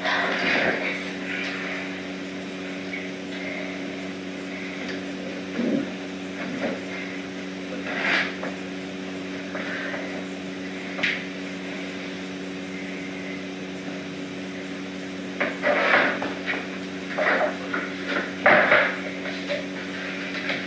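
Scattered knocks and clatters of things being handled and moved about the room, over a steady low hum. The knocks are sparse through the middle and come thick near the end.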